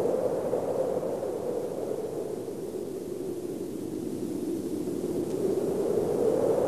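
Wind sound effect in an animated soundtrack: a steady rushing noise that eases a little mid-way and swells again near the end.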